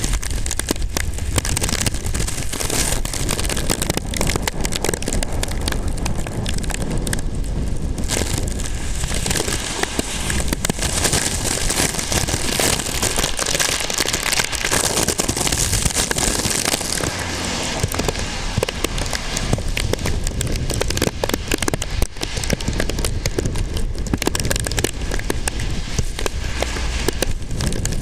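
Typhoon rain and wind: a dense, continuous crackling hiss of rain with a low rumble of wind buffeting the microphone, swelling and easing slightly but never stopping.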